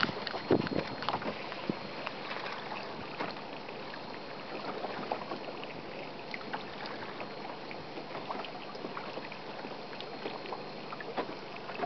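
Water lapping and slapping against the hull of a small open boat: an even wash of sound dotted with many small splashy ticks, with a few louder knocks in the first two seconds.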